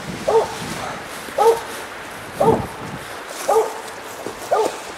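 Cur squirrel dog barking five times at an even beat, about one bark a second: a steady tree bark, the dog holding a squirrel up a tree.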